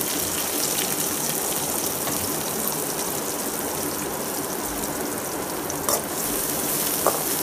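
Chopped onions sizzling steadily in hot oil in a kadai as they sauté, with a spatula stirring them near the end.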